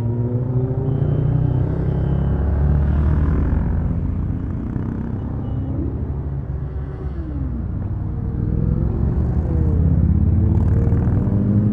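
Several motorcycle engines: a steady, loud low rumble close by, with a stream of motorcycles riding past one after another, their engine notes rising and falling as each goes by.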